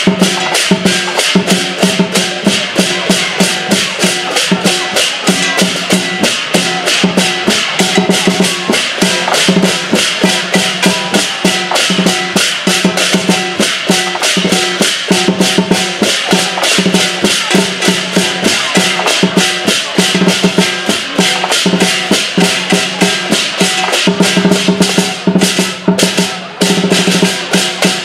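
Cantonese lion dance percussion: a large lion drum beaten in a fast, steady rhythm of several strikes a second, with clashing cymbals and a ringing gong. The beat breaks briefly near the end.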